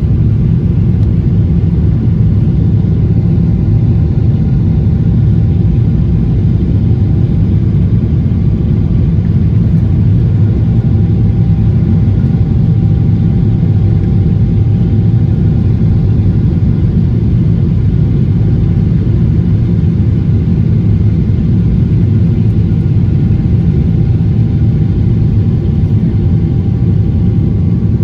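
Aircraft engine noise: a loud, steady low drone with a few faint steady tones above it, unchanging throughout.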